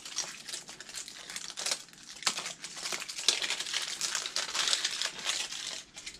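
Crinkly wrapper packaging crackling and rustling as blind-pack minis are unwrapped by hand, with many small sharp clicks mixed in.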